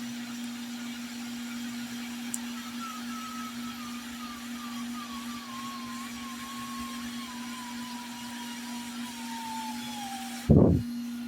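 Steady low electrical hum, with a faint wavering whistle sliding slowly down in pitch for several seconds, then a sudden loud, deep boom near the end.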